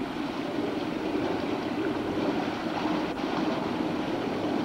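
Fountain jets in a spa splashing steadily into the water, a continuous rushing sound.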